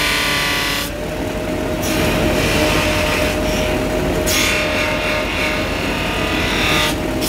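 Motor-driven polishing wheel running with a steady whine and hum, with a knife blade pressed against it in spells, giving a loud hissing rush: about the first second, briefly near two seconds, and again from about four and a half to seven seconds.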